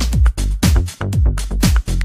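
Background music: an electronic dance track with a steady four-on-the-floor kick drum at about two beats a second and a deep bass line.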